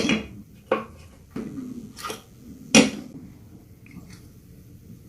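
Clicks and clinks of a small Allen wrench working the screws of the plastic wheel covers on a Xiaomi M365 scooter, with small parts being handled. There are about five separate sharp clicks, roughly one every 0.7 s, the loudest a little before the 3-second mark.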